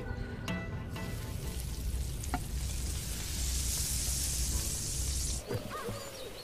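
Pieces of fish shallow-frying in hot oil, sizzling steadily. The sizzle comes in about a second in and cuts off suddenly shortly before the end.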